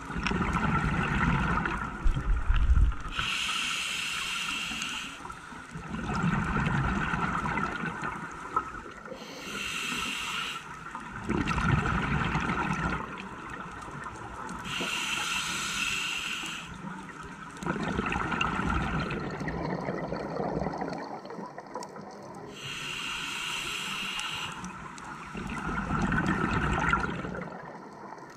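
Scuba diver breathing through a regulator, heard underwater through the camera housing: slow breaths, each a short hiss of inhaled air followed by a longer rumble of exhaust bubbles, repeating about every five to six seconds.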